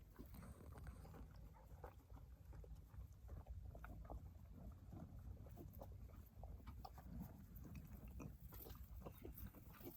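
Near silence: faint scattered clicks and crackles over a low rumble.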